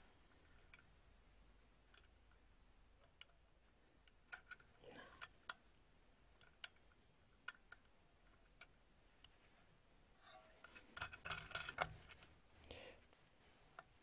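Scattered small metallic clicks and taps from the bell and its fixing screw being fitted by hand onto an old Parrot Frères mantel clock movement, with a denser run of clicks and handling noise near the end.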